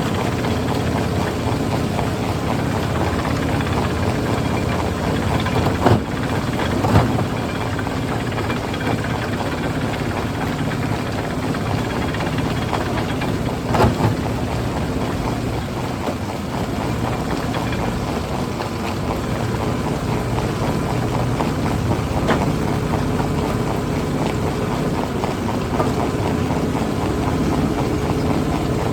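Heavy machine's engine running steadily, with a few sharp knocks standing out from it, five or so spread across the stretch.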